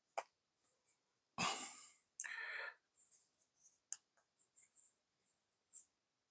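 Faint handling noise of a phone with a magnetic power bank on its back being turned over in the hands: scattered light clicks and taps, a short breath-like rush about a second and a half in, and a sharp click just after two seconds followed by a brief rustle.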